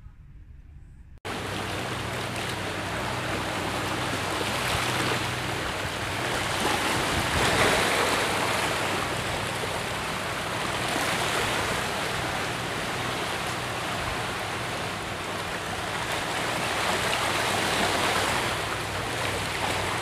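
A steady rushing noise starts suddenly about a second in and swells slowly up and down. Before it there is only faint background.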